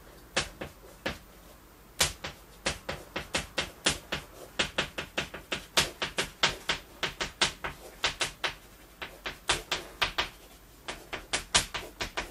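Chalk writing on a chalkboard: quick runs of sharp taps and short scrapes as each character is stroked out, broken by brief pauses between characters.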